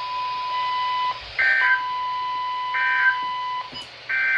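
Emergency Alert System end-of-message data bursts: three short warbling digital chirps about 1.4 s apart, sent once the spoken severe thunderstorm warning is over. Under them, another receiver's steady high-pitched weather radio alert tone breaks briefly about a second in and stops after about three and a half seconds.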